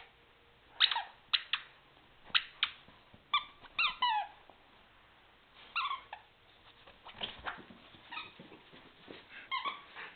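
Squeaky dog toy squeaking as a dog chews it: short, sharp squeaks in quick clusters of two to four, with pauses between, some sliding down in pitch.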